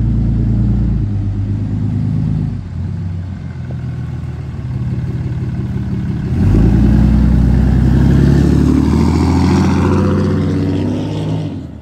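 Lifted fourth-generation Ram pickup's engine and exhaust as the truck drives by, running steadily at first, then louder and higher in pitch from about six seconds in as it accelerates, and fading away near the end.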